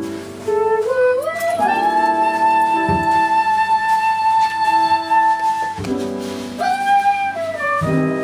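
Small jazz band playing live: a lead melody line slides upward and holds one long high note for about four seconds, then falls away and rises again near the end, over double bass, piano and drums.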